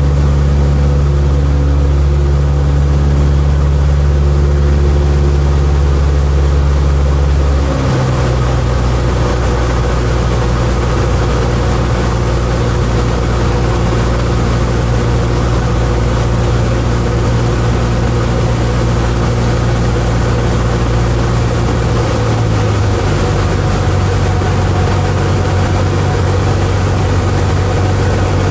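Light training aircraft's piston engine and propeller droning steadily. The engine note shifts and drops slightly about eight seconds in, then changes again about 22 seconds in, as power settings change during circuit flying.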